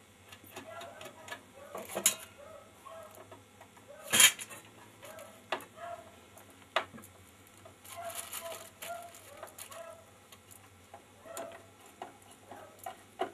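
Small metallic clicks and clinks of screws and a hand tool as the screws of a 16 mm projector's rear cover plate are fitted, with a sharp knock about four seconds in and a short scraping rustle around eight seconds.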